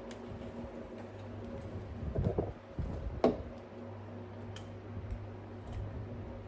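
A steady low mechanical hum with scattered sharp clicks and knocks, the loudest click about three seconds in.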